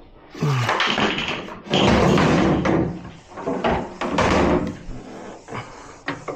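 Steel tailgate of a 1999 Dodge Ram pickup being lifted off its hinges and set down, in several loud stretches of metal clanking and scraping.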